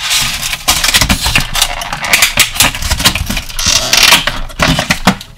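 Plastic packaging crackling and clicking in a dense run of quick snaps as small action-figure accessories are worked out of it.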